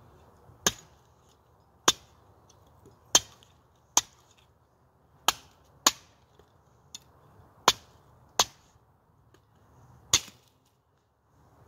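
Timber Wolf Armor of God bowie knife, with an 11-inch blade, chopping into a split piece of firewood: about nine sharp strikes at uneven intervals roughly a second apart. These are light chops, because the thin blade bites deep into the wood.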